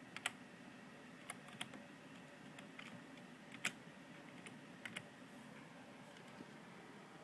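Computer keyboard keys pressed singly and unevenly, a dozen or so faint clicks spaced a fraction of a second to about a second apart, over low room hiss.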